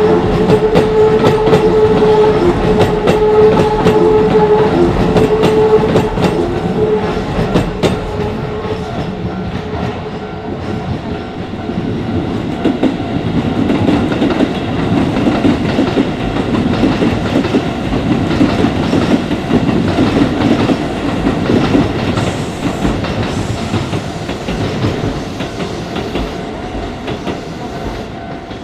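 Electric commuter train passing a level crossing, its wheels clacking over the rail joints. It is loudest for about the first six seconds, then becomes a lower rumble that fades toward the end.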